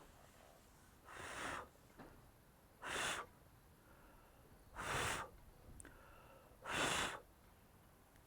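A person blowing hard four times, about two seconds apart, each puff about half a second long.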